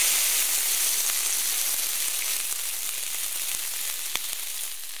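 Tantuni meat frying in a hot pan: a steady sizzle that eases slightly, with faint crackles and one sharper click about four seconds in.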